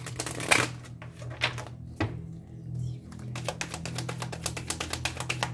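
A deck of oracle cards is handled and shuffled by hand: first a few separate taps as the cards come out of their box, then, from a little past halfway, a quick run of dense clicks as the cards slide over one another. A steady low hum sits underneath.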